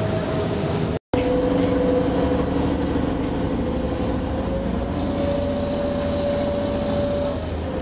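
Vaporetto engine running with a steady hum and low rumble, its pitch rising slowly and falling back near the end as the throttle changes while manoeuvring. The sound cuts out for an instant about a second in.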